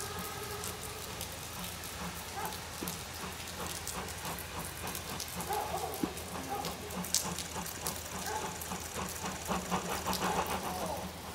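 A train running on rails: a steady low rumble with many scattered clicks and knocks, busier near the end.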